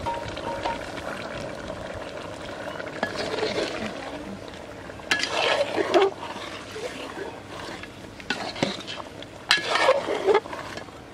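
Long metal spoon stirring a wet curry in an aluminium pot, scraping and clinking against the pot in two bouts, about five and nine seconds in.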